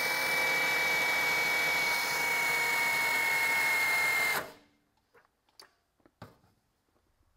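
CAT cordless drill in its high-speed second gear running flat out against a torque dynamometer's load: a steady motor whine with a high tone. It cuts off suddenly about four seconds in, followed by a few faint clicks.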